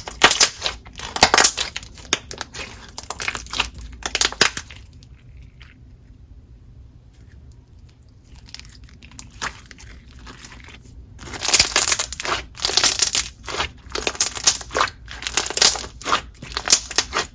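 Store-bought clear gold putty slime, mixed with blue slime, squished and pressed by hand, making quick runs of clicks and small bubble pops. The pops come in two busy stretches with a quieter gap of several seconds in the middle.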